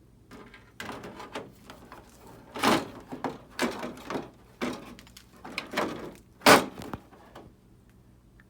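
Handling noise from the aftermarket grill pieces being moved and set in place: a series of knocks, clunks and scrapes, with two louder clunks about two and a half and six and a half seconds in.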